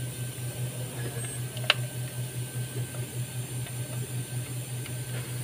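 A steady low machine hum that pulses a few times a second, with one sharp click about a second and a half in, from a part being handled on the engine.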